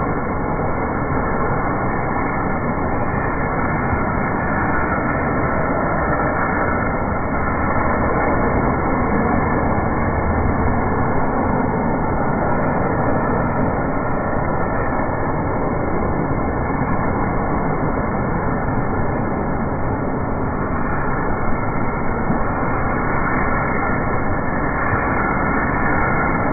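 Heavy rain falling on a paved street and rainwater rushing along the curb, a steady, even rushing noise.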